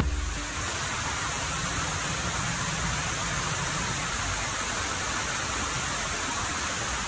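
Waterfall cascading down a broad rock slope: a steady, even rush of water.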